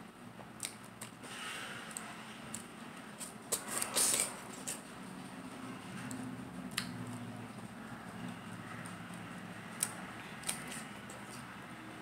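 Close-miked eating of fresh pineapple: wet mouth clicks and smacks while chewing, with a juicy bite into the slice about four seconds in.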